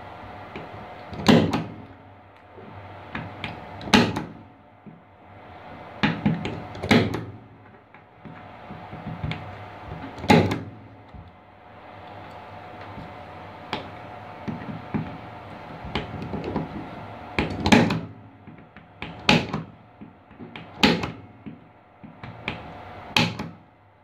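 Impact punch-down tool snapping as its spring releases, seating wires into a network keystone jack's terminals: about eight sharp snaps a few seconds apart, with softer rustling and clicking of wires and plastic between them.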